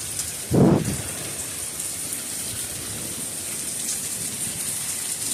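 Steady rain falling, with one brief, loud low thump about half a second in.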